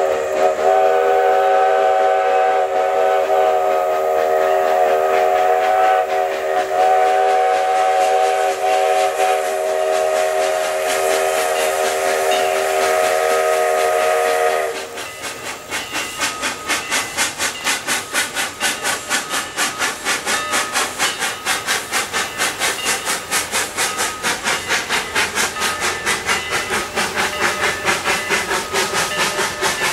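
The steam whistle of Southern Railway 2-8-0 No. 154 sounds one long multi-note chime for about fifteen seconds, dipping once briefly partway through. After it cuts off, the locomotive's exhaust beats carry on in a steady rapid rhythm as it works across the trestle with its train.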